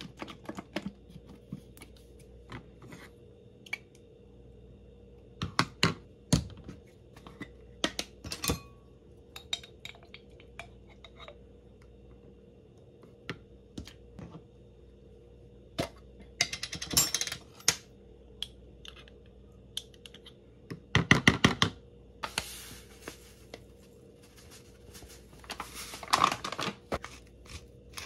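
Wooden spoons tapping and knocking against a ceramic bowl and condiment squeeze bottles being handled and squeezed: a series of separate clicks and knocks, with a few short hissing squirts and rapid clicking runs in the second half.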